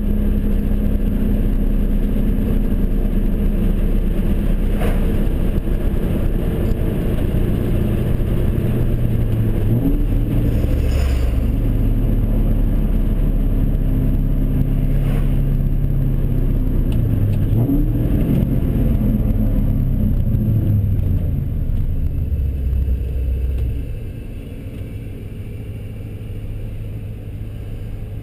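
A 2002 Mustang GT's 4.6-litre V8, fitted with long-tube headers, an off-road X-pipe and a straight-piped catback, heard from inside the cabin while driving: a loud, deep exhaust drone whose pitch shifts twice, then drops to a quieter, steady low rumble about 24 seconds in as the car comes to a stop.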